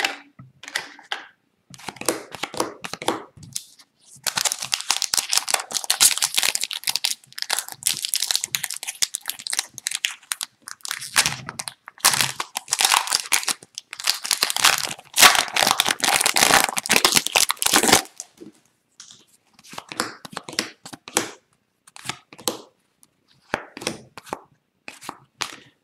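Wrapper of an Upper Deck hockey card retail pack being torn open and crinkled, a long dense crackle of plastic. Near the end it gives way to short scattered flicks as the cards are slid and shuffled through by hand.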